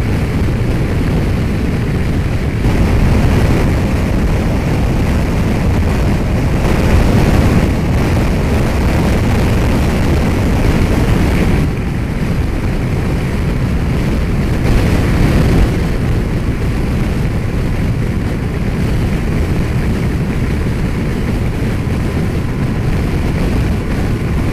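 Wind rush and engine drone of a 2015 Yamaha FJR1300ES inline-four motorcycle cruising at highway speed, heard through a helmet-mounted camera buffeted by the wind. It is a steady, deep rumble that drops a little in level a little before halfway through.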